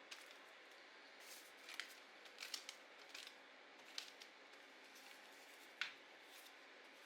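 Scissors cutting paper in a series of short, separate snips, the loudest near the end.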